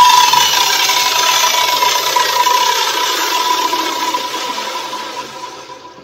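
Electric mitre saw's motor and blade winding down after being switched off, with a steady whine that falls in pitch and fades out over about six seconds.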